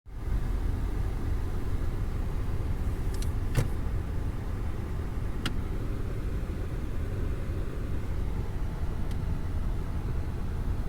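Steady low rumble of a 2014 Nissan Altima, with a few sharp clicks about three and a half seconds in and again about five and a half seconds in.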